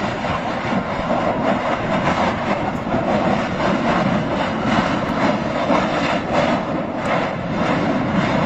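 Mount Etna's summit eruption at the Voragine crater: a steady, dense rushing noise with a fine crackle, without let-up, from lava being blasted out of the vent.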